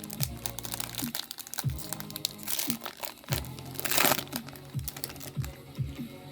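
Foil trading-card pack wrapper crinkling as it is handled and opened, with a louder crackle about four seconds in. Background electronic music with a steady beat runs underneath.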